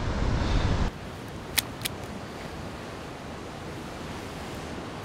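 Ocean surf breaking and washing against rocks, a steady hiss, after wind rumbling on the microphone for about the first second. Two short sharp clicks about a second and a half in.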